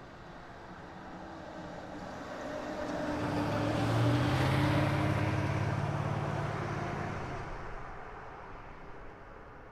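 Ferrari sports car's V8 engine driving past with a steady engine note that swells to its loudest about four to five seconds in and then fades away.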